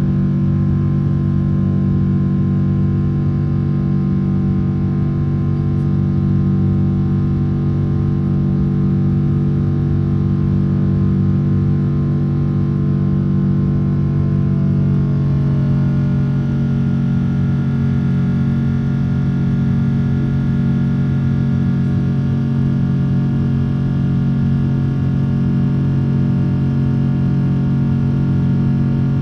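Steady drone of a Boeing 777-300's engines heard inside the passenger cabin, a dense hum of many steady tones. About halfway through the pitch pattern shifts, as when engine thrust changes.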